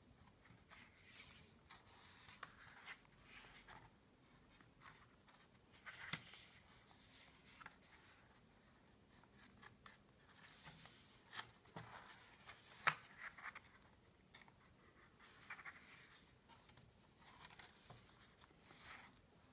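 Faint paper rustling as the pages of a small sketchbook are handled and turned by hand: short soft brushes and scrapes of fingers sliding over paper, with one sharper paper snap about thirteen seconds in.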